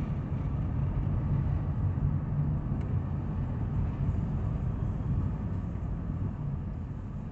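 Road and engine noise inside a moving car's cabin: a steady low rumble that eases slightly near the end as the car slows.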